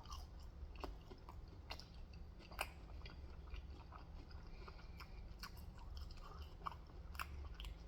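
Faint close-up chewing of Korean fried chicken: soft, irregular wet clicks and small crunches of mouth sounds, with one sharper crunch about two and a half seconds in.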